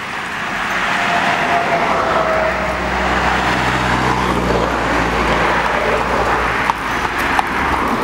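Motor traffic passing close by: tyre and engine noise swells over the first second and stays loud, with a low engine hum in the middle as a truck goes by. A few sharp clicks come near the end.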